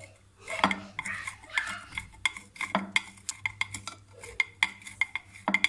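Block of cheese grated on a small metal hand grater: an irregular run of short rasping scrapes and sharp clicks.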